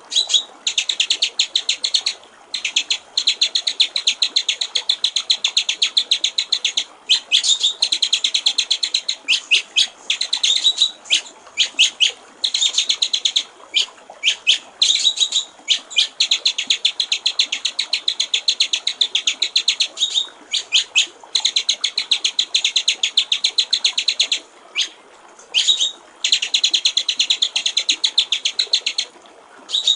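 White-rumped shama (murai batu) singing long runs of rapid, evenly repeated high chirps, broken every few seconds by short pauses, over a faint steady trickle of water.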